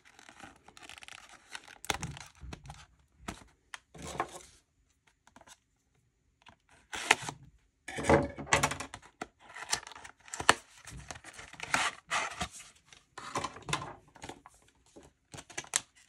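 An SSD's cardboard retail box being cut with a knife and torn open, with its plastic packaging rustling: irregular tearing and scraping, a short pause about five seconds in, then busier tearing through the second half.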